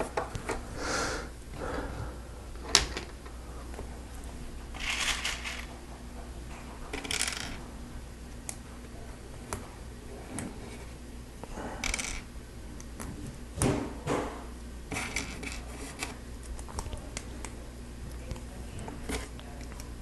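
Small plastic Lego Technic pieces being handled and fitted together: scattered sharp clicks and several short rattling, rustling clatters.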